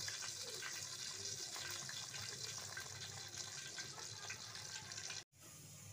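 Broth boiling hard in an aluminium pot, bubbling and spattering. A little over five seconds in it cuts off abruptly, replaced by a quieter steady hiss.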